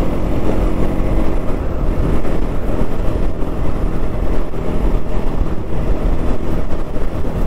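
Bajaj Pulsar NS200 single-cylinder engine running steadily at cruising speed, heard from the rider's seat under heavy wind rumble on the microphone.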